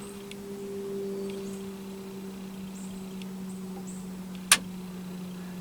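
A steady low hum, with a few faint high chirps and a single sharp click about four and a half seconds in.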